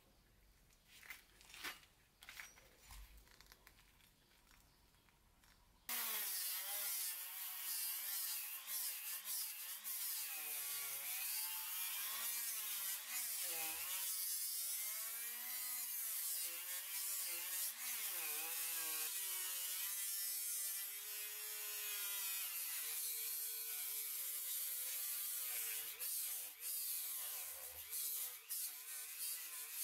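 A few faint clicks, then about six seconds in a Dremel-type rotary tool starts up and runs with a high whine. Its pitch keeps rising and falling as its sanding drum grinds and shapes the steel of a cleaver blade, with a rasping hiss of abrasive on metal.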